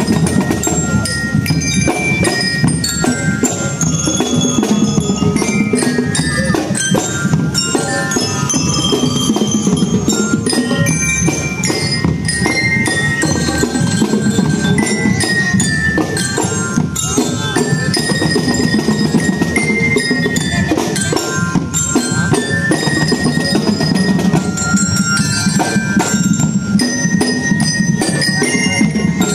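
Drum and lyre band playing: bell lyres ring out a stepping melody over steady snare and bass drumming.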